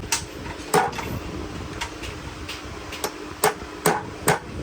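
A string of sharp knocks and clicks from tools and metal parts being struck and handled while a bus shock absorber is worked on, about nine at uneven spacing and some louder than others, over a steady low hum.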